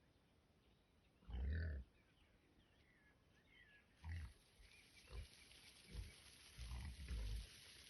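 Wild boar grunting: a series of short, deep grunts, the loudest about a second and a half in, then several more in the second half.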